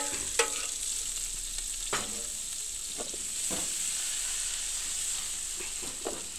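Leftover meat marinade sizzling and frying in a pan: a steady hiss, with a few brief clicks.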